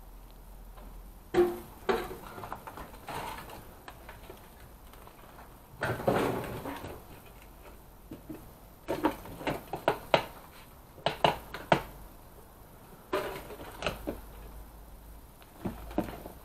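Irregular sharp knocks, crunches and ceramic clinks of broken pottery and rubble being stepped on and shifted, coming in scattered clusters.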